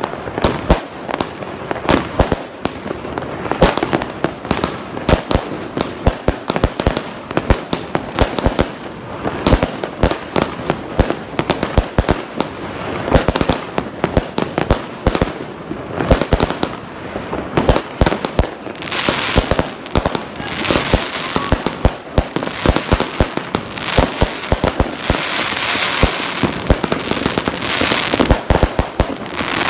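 Fireworks display: aerial shells and firework bangs going off in rapid succession, several a second, with a hissing crackle of crackling stars joining in over the last third.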